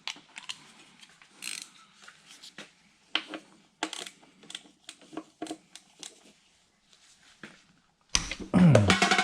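Ratchet and Allen-socket clicks and small metal knocks while the transmission drain plug is worked loose, then a loud rush about eight seconds in as the plug comes free and fluid pours into the drain container.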